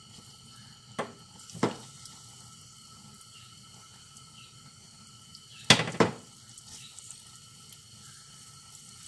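Thick batter being spooned into a hot oiled nonstick frying pan with a spatula: a faint sizzle under sharp knocks of the spatula, two about a second in and a louder pair at about six seconds.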